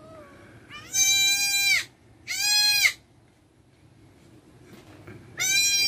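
A goat bleating three times, high-pitched calls each lasting under a second, the second following close on the first and the third a few seconds later.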